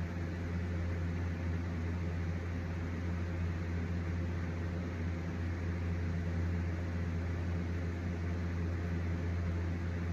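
Steady low machine hum with an even hiss, unchanging throughout, like a running fan or motor.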